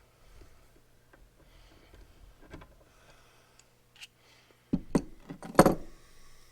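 Small metal parts and tools being handled: scattered faint clicks, then a quick cluster of sharp clinks and knocks near the end.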